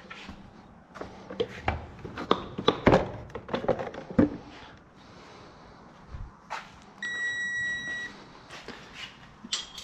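Irregular metal clinks and knocks of tools and fasteners being worked, then about seven seconds in a single steady electronic beep lasting about a second: a digital torque wrench signalling that the bolt has reached its set torque of 9 foot-pounds.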